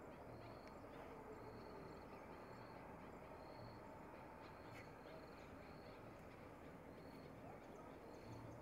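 Near silence, with a faint high chirp from an insect repeating about every half second.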